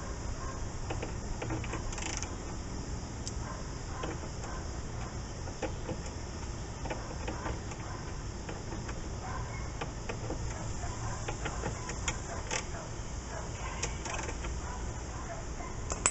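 Scattered light clicks, taps and scrapes of screws and hand tools on car door hardware as screws are fitted, over a steady low hum.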